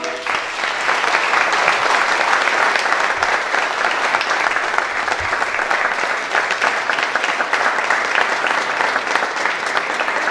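An audience applauding, a dense steady clapping that eases off slightly near the end.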